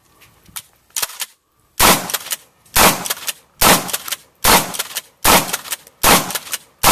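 Kel-Tec KSG pump-action shotgun fired in rapid succession: seven loud shots a little under a second apart, starting near two seconds in, after a quieter crack about a second in.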